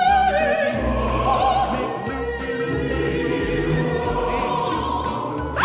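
Dramatic orchestral music with an operatic singing voice and choir, the voice wavering with vibrato on held notes.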